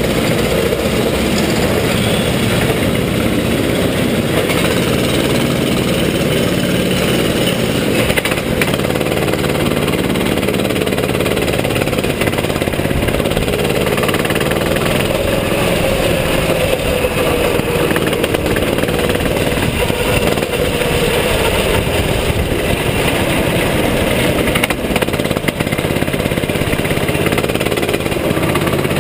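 Rental go-kart engine running close to an on-board camera as the kart leaves the pit line and drives round the track, with other karts' engines mixed in; the loudness stays steady throughout.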